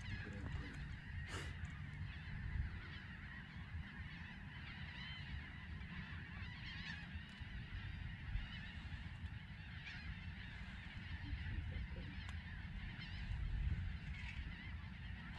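Many birds calling over one another in a continuous chatter of short, rising and falling calls, over a low steady rumble.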